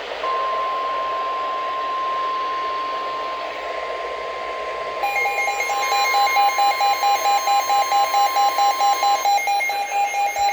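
NOAA Weather Radio warning alarm tone: one steady high tone held for about nine seconds, the signal that a warning message follows. About halfway in, a pulsing electronic alert beep joins at about two and a half beeps a second and is still going after the steady tone stops.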